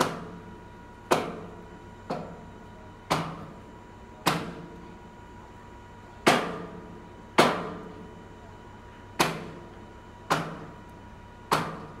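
A heavy knock about once a second, ten in all with a longer pause near the middle, each ringing out briefly, over a steady low hum.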